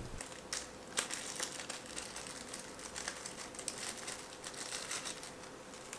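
Crinkling and rustling of small plastic packaging being handled as an Arduino microphone module is taken out, with scattered small clicks, the sharpest about a second in.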